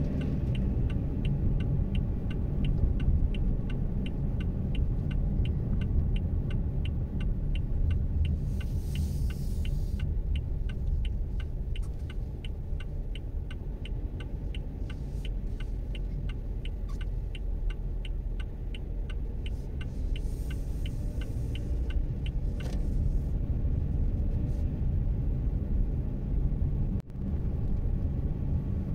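Low road and engine rumble inside a moving Haval Jolion. Over it, a turn-signal indicator ticks evenly at a few ticks a second and stops about three quarters of the way through.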